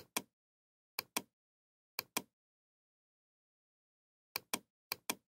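Computer mouse clicks, each a sharp press-and-release pair: five clicks, one each at the start and about one and two seconds in, then two quick ones after about four seconds, with dead silence between.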